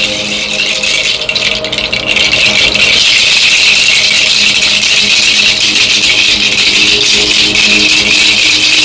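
Handheld rattle of dried pods bunched on a wooden stick, shaken continuously in a dense, rapid rattle. It is softer for the first two seconds or so, then louder.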